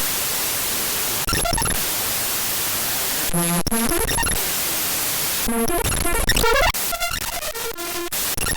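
Icon image files' raw data played back as audio: mostly a harsh, steady white-noise hiss, broken twice by short buzzy stretches of repeating, bending tones, then crackling static near the end.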